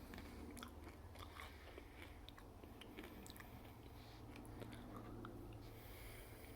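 A person chewing M&M's Crunchy Cookie candies: faint, irregular crunching clicks as the hard candy shell breaks.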